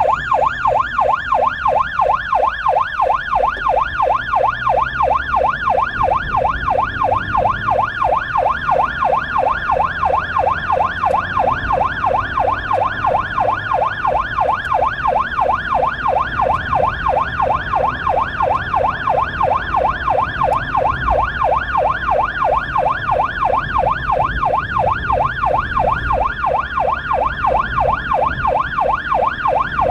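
Emergency-vehicle electronic siren on a blood-transport car, in a rapid yelp that sweeps up and down several times a second without a break. It is heard from inside the car, over a low engine and road rumble.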